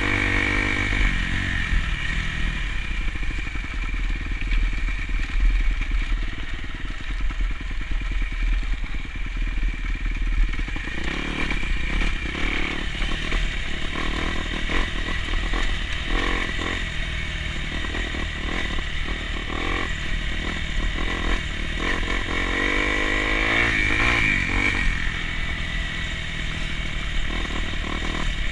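Off-road vehicle engine running steadily under way, with the revs climbing about three-quarters of the way through. From about ten seconds in, intermittent knocks and rattles come through.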